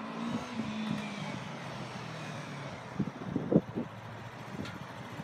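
Yamaha R3's 321 cc parallel-twin engine on its stock exhaust, ridden slowly by: a quiet, low engine note that sinks slightly in pitch over the first couple of seconds. A few dull thumps come about three seconds in.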